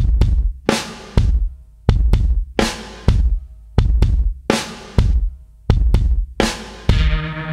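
Background music: a steady drum beat of heavy bass drum and snare hits, roughly two a second, with sustained low notes joining in near the end.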